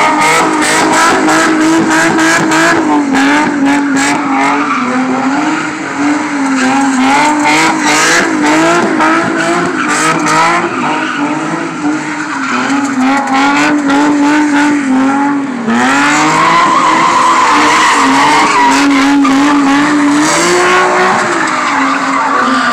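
Infiniti G35's V6 engine revving high with the revs wavering up and down as the tyres squeal and skid through a spin. About 16 s in there is a brief dip, then the tyre squeal turns louder and steadier.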